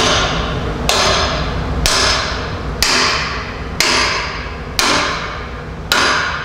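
Hammer blows on a welded steel T-joint clamped in a vise: seven ringing metal strikes about a second apart. The blows bend the piece to test a weld seam laid with pure argon shielding gas.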